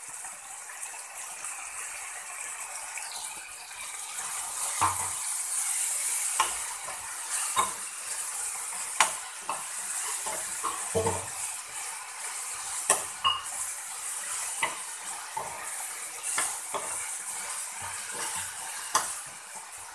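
Onion-tomato masala sizzling in hot oil in a pressure cooker while a metal spoon stirs it. From about five seconds in, the spoon scrapes and knocks against the pot over and over.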